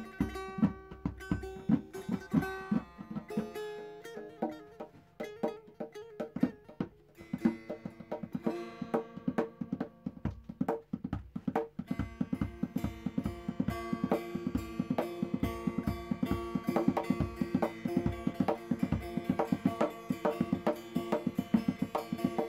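Instrumental background music: plucked strings over a steady percussion beat.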